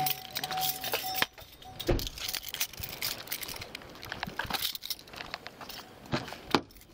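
Rustling and jingling of a police officer's duty gear and keys against a body-worn camera as he climbs out of a patrol car, with scattered clicks and knocks. A pulsing electronic tone, like a car's door-open chime, sounds until about a second in, and a sharp knock comes near the end.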